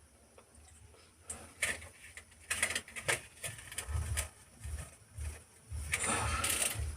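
Kitchen handling noises as spices are handled and added to a pot: scattered light clicks, knocks and rustles starting about a second in, with a longer rustle near the end.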